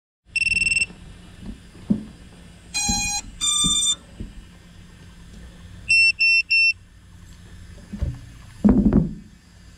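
GEPRC Mark 5 FPV quad powering up: a short high electronic beep, then two steady tones stepping up in pitch, the motors sounding the ESC start-up chime. Three quick high beeps follow about six seconds in, and near the end come handling knocks on the frame, the last as loud as the beeps.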